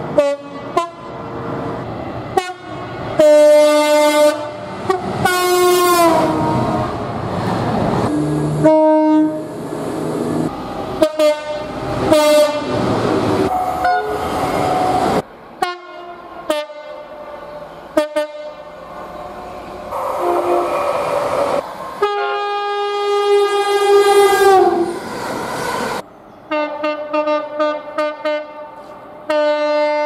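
Train horns from one train after another: quick short toots and longer held blasts, several stepping down from a higher note to a lower one, with the noise of trains running through between some of them. The horns cut in and out abruptly.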